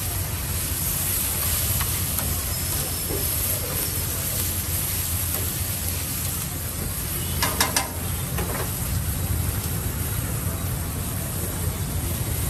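Chopped vegetables sizzling on a flat iron griddle as they are stirred with a metal spatula, a steady hiss over a steady low rumble. A few sharp metallic clicks come about seven and a half seconds in.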